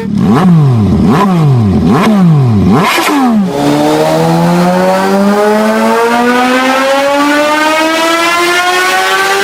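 Superbike engine changing down four times, about a second apart, the revs falling away after each change. Then it holds a gear and the revs climb steadily as it accelerates.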